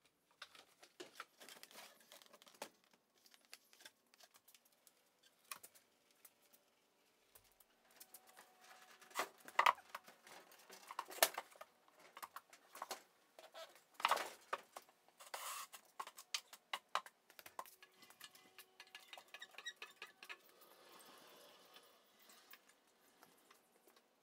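Scattered light clicks, taps and knocks of things being handled and set down, irregular throughout, with a few sharper knocks around the middle.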